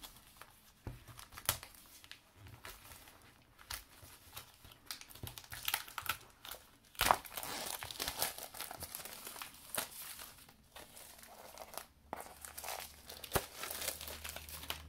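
Clear plastic packaging wrap crinkling and crackling in irregular bursts as it is pulled off a pack of card stock and envelopes, with one sharp crackle about seven seconds in.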